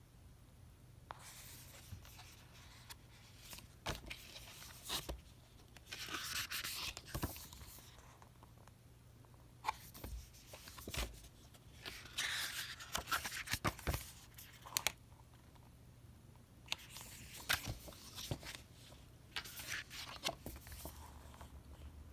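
Glossy booklet pages being turned and handled: several soft papery swishes with light clicks and taps from fingers on the pages in between.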